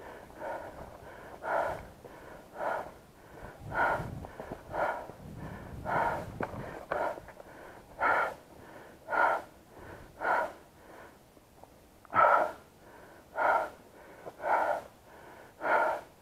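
A person breathing hard close to the microphone: loud, even breaths about once a second, as after running or hard walking.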